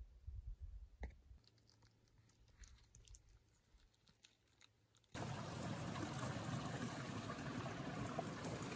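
Faint low rumble with a few soft clicks, then about five seconds in an abrupt cut to the steady rush of running water from a mountain stream or spring.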